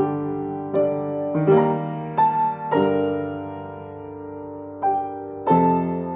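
Solo piano played slowly: chords and notes struck every half second to second and left to ring, with a longer held chord in the middle before two more strikes near the end.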